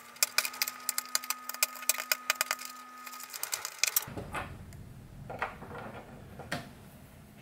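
Hobby knife scraping and shaving the edge of a rectangular cut-out in a plastic enclosure panel: a fast run of scratchy clicks for about three seconds over a faint steady hum. Then a few light clicks and taps as a sub-D connector is fitted into the hole.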